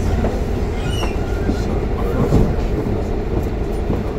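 Inside a moving double-decker bus: steady low engine and road noise, with a few light rattles.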